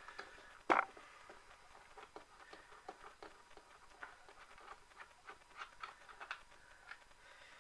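Faint small clicks and scrapes of fingers unscrewing a nut from the top of a Hornby R965 model railway controller's plastic case, with one sharper, louder click just under a second in.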